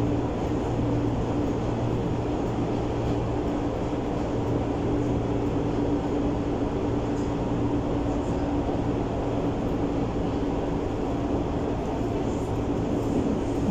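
Berlin U-Bahn type H train running at steady speed through a tunnel, heard from inside the car: an even rumble of wheels on rail with a constant low hum.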